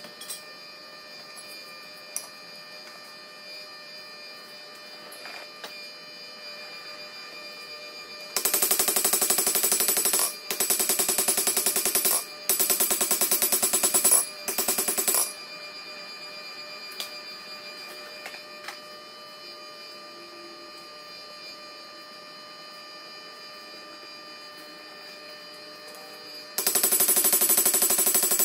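Runs of rapid hand-hammer blows on red-hot blade steel over a steel anvil, with the anvil ringing. Four runs come in quick succession from about a third of the way in to about halfway, and another starts shortly before the end.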